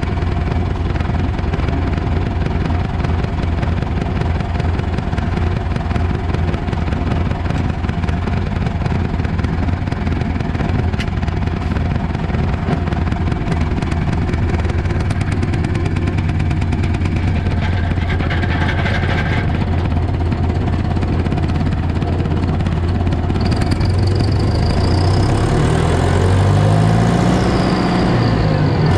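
Fendt tractor's diesel engine running steadily. Near the end its pitch rises and falls back, and a high whine joins in.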